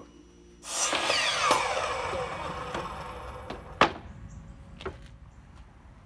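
Miter saw winding down after cutting a wooden block: a sudden loud start about half a second in, then a falling whine that fades over a couple of seconds. A few sharp knocks follow, the loudest about four seconds in.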